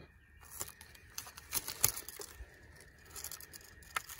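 Fingers pulling and tearing at the tough, paper-like silk of a cecropia moth cocoon: faint, irregular crackling and tearing, with sharper crackles a little before two seconds in and near the end.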